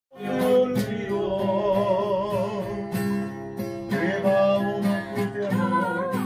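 Music: a strummed acoustic guitar keeping a steady beat, with a voice singing over it.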